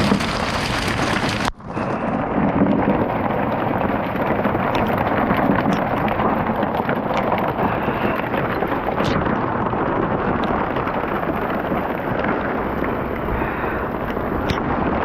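Heavy storm rain pouring down, a dense steady hiss that cuts out sharply for a moment about one and a half seconds in, then carries on.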